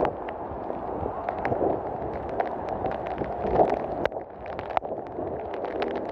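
Storm noise: strong wind and heavy rain making a steady rushing sound, with many short, sharp clicks and knocks scattered through it.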